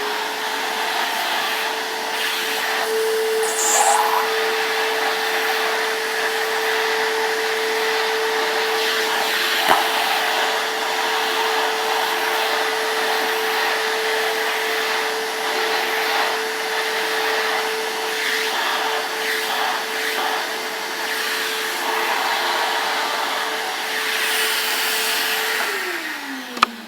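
Stanley 4-gallon stainless steel wet/dry shop vacuum running at a steady motor whine while vacuuming up a mess, with a few clicks along the way. Near the end the motor winds down, its pitch falling.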